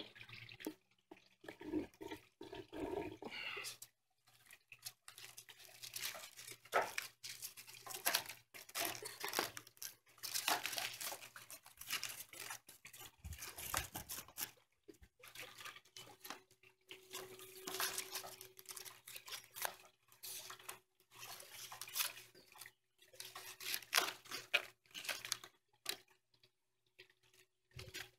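Dry phragmites reed stalks rustling and crackling in quick, irregular bursts as they are handled, laid against a pole and bound into a bundle.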